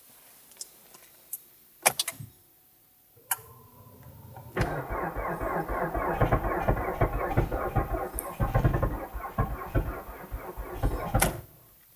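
A few clicks, then a Kia Cee'd's starter cranking the engine in deep cold (−31 °C) with a rapid pulsing churn for about seven seconds; it cuts off abruptly near the end and the engine does not settle into an idle.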